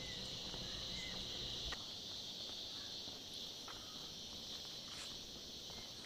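Continuous high-pitched chirring of an insect chorus in the forest, an even buzz that does not let up. A low rumble fades under two seconds in, and a few faint ticks and taps sound here and there.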